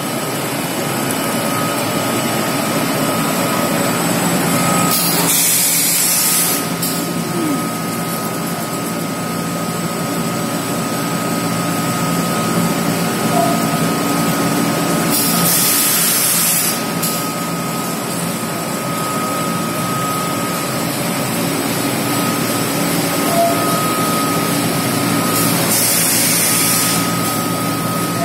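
Honeycomb paperboard production line running: a steady machine hum with a constant high whine, and a hiss that comes about every ten seconds, three times, each lasting a second or two.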